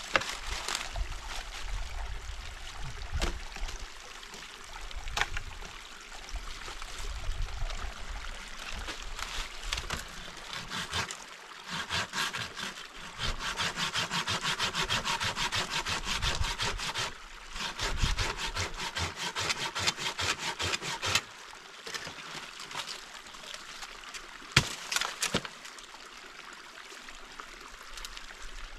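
Hand saw cutting through a dry branch in quick, even strokes, steadiest and loudest midway through, with a couple of sharp knocks near the end.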